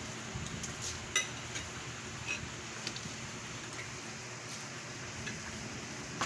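Kittens gnawing and tugging at a chicken bone on a tile floor: scattered light clicks and clinks of bone against the tile, one sharper clink about a second in, over a steady hiss.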